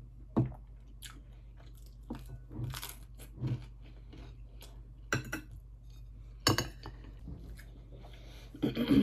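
Close-up crunches and clicks, about a dozen short sharp sounds at irregular intervals, the loudest about six and a half seconds in and a cluster near the end, over a steady low hum.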